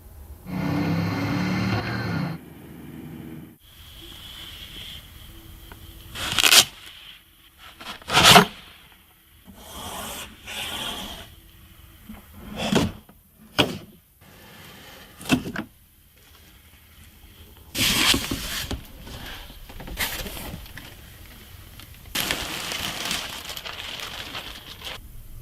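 Hands handling the Hyte Y70 Touch PC case: a series of sharp knocks and clicks with scraping and rustling between them. A brief low hum sounds about a second in.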